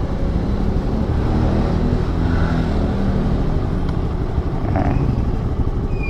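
Scooter engine running at idle, a low steady hum that eases off about halfway through.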